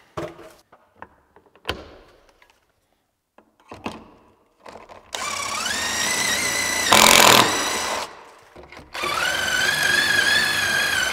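Cordless drill driver driving screws into the timber staircase, running in two spells. The first whines up in pitch and has a short harsh burst, the loudest moment, about seven seconds in. The second runs steadier for about two seconds. A few light knocks come first.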